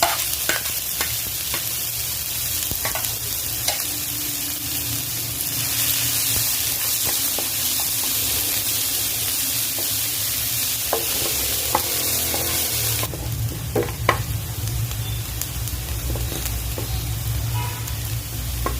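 Onions frying in hot oil in a pan: a steady sizzle with the scrape and tap of a spatula stirring them. About two-thirds of the way through the sizzle softens.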